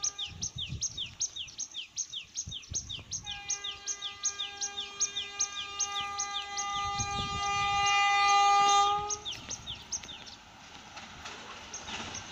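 Railway track singing under an oncoming train: a rhythmic chirping, about four chirps a second, over a steady pitched hum. It grows louder and cuts off suddenly about nine seconds in, leaving a softer running noise.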